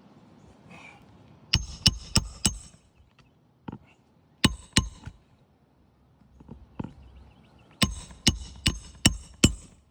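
Hammer driving roofing nails by hand through asphalt shingles: sharp, ringing metal-on-metal strikes in three bursts, about four quick blows, then two, then five, with a few lighter taps between.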